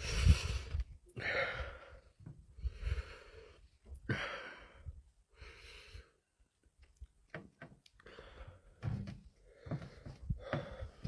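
A man breathing heavily and audibly through his mouth, about one breath every second and a half, from the burn of eating Carolina Reaper chillies.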